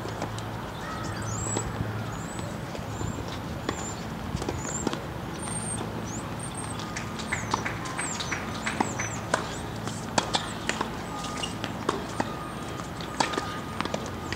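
Tennis-court ambience: a steady low hum under scattered sharp knocks of tennis balls bouncing on the hard court and being struck, coming thicker in the second half. Thin high chirps sound through the first half.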